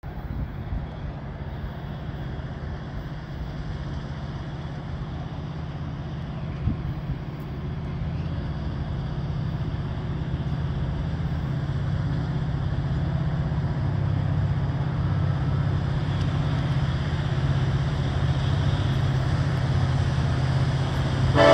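Diesel-electric freight locomotives approaching, led by an EMD SD70ACe: a steady low engine drone that slowly grows louder. There is one brief knock about seven seconds in.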